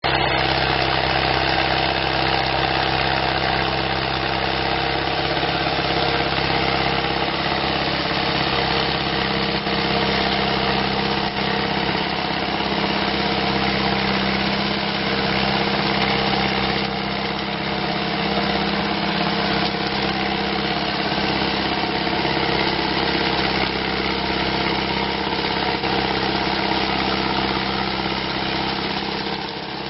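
New Holland farm tractor's diesel engine running steadily while pulling a field implement through weeds and brush.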